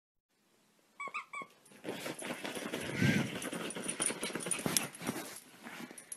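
Small fluffy dog giving three short, high whining yips in quick succession, then scuffling and rustling in bedding with one more brief whine.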